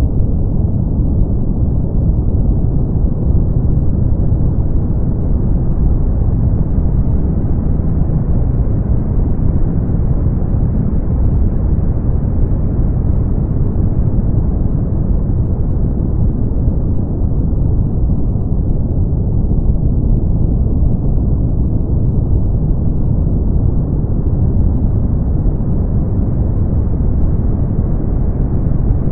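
Brown noise: a steady, deep hiss with most of its energy in the bass and little treble, brightening and dulling slightly over several seconds.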